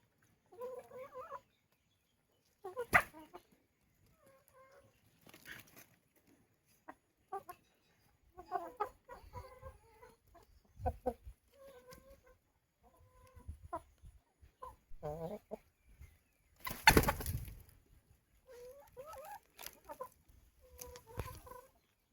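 Desi chickens clucking in short, scattered calls. There is a sharp click about three seconds in and a louder noisy burst lasting about a second near seventeen seconds.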